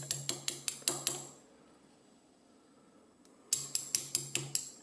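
Small metal lock parts, the plug and pins of a euro cylinder, clinking against a metal tray during gutting. There are two quick runs of light, sharp clinks, about six in each, with a quiet gap of about two seconds between them.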